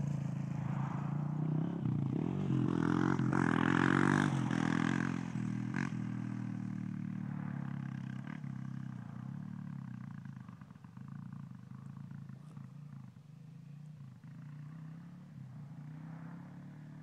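Honda 230cc dirt bike's single-cylinder four-stroke engine revving up hard in the first few seconds, then fading steadily as the bike rides off into the distance.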